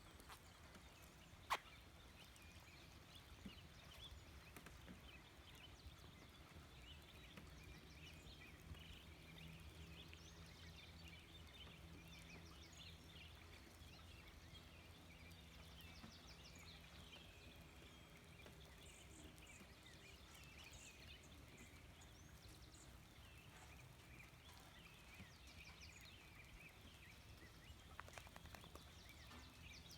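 Faint nature ambience: small birds chirping and twittering throughout, with a faint low hum through the middle and a single sharp click about one and a half seconds in.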